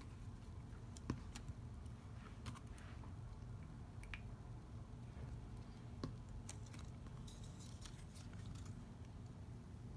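Light handling of card stock while wet glue is applied to a folded tab: scattered soft clicks and taps, the sharpest about a second in and another about six seconds in, with faint paper rustling near the middle. A low steady hum sits underneath.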